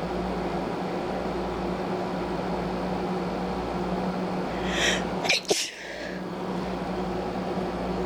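A single sneeze about five seconds in, led by a short sharp intake of breath, over a steady background hum.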